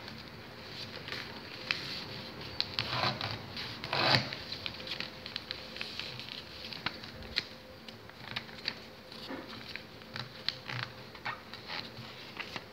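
A sheet of printer paper being folded and creased by hand on a tabletop: scattered crinkles and ticks of the paper, with a longer, louder rustle about four seconds in.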